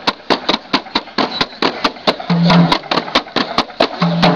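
Drums beaten in a fast rhythm of sharp strikes, about seven a second, with a short low note sounding twice.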